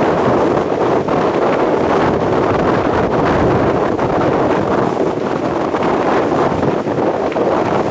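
Strong blizzard wind blowing across the microphone: a loud, steady rush of wind noise.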